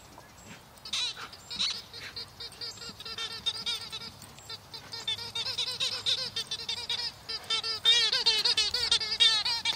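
A greyhound chomping on a rubber football toy, squeaking it over and over in quick, wavering squeaks that come faster and louder toward the end.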